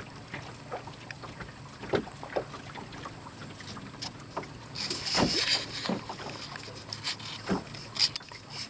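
Water slapping and splashing against the hull of a small wooden sailboat under way, in irregular knocks and gurgles, with a louder rush of spray about five seconds in.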